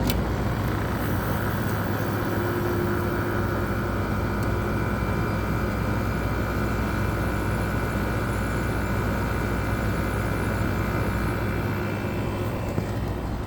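Haier 5,050 BTU window air conditioner running on its R32 compressor and fan, heard at the back of the unit: a steady hum and rush of the compressor with refrigerant noises, and a steady high whine that stops near the end.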